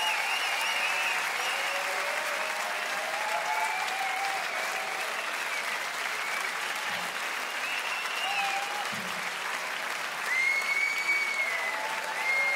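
Live concert audience applauding, with whistles and a few calls over the clapping; one long whistle comes about ten seconds in.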